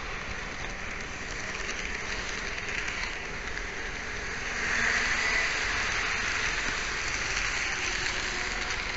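N-scale model train running on Kato Unitrack, heard as a steady rolling hiss and rattle through a mini camera riding on the train itself. The noise grows louder about halfway through and stays up.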